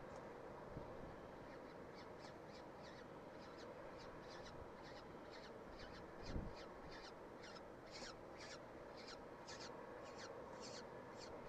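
Downy peregrine falcon chick, about a week old, giving short, high begging calls about two to three times a second while being fed, growing louder toward the end. A steady low hum runs underneath, with a single low thump about six seconds in.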